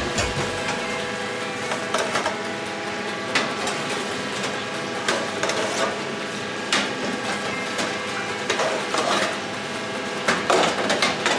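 Kitchen clatter: scattered knocks and clanks of metal trays and pans being handled, over a steady hum.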